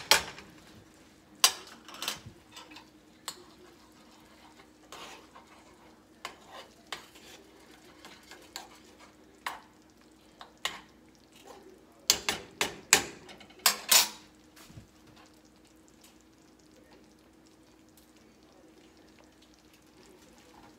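Metal spoon clinking and scraping against skillets while stirring and spooning a simmering cream sauce, in scattered taps with a dense run of clinks past the middle. The last few seconds hold only a faint steady hum.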